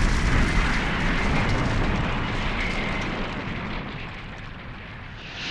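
Animated explosion sound effect: the deep rumble of a huge blast dying away slowly, with a fresh swell right at the end.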